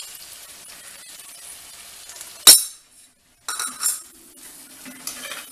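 Brinjal and onions frying in a clay pot with a steady sizzle, broken about two and a half seconds in by one loud, sharp clink. After a brief gap, a metal spoon scrapes and clatters in the pot as spice powder is stirred through the vegetables.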